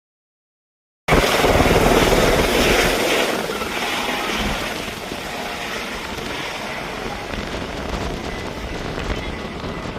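Helicopter running, rotor and engine noise cutting in abruptly about a second in, loudest for the first couple of seconds and then easing somewhat.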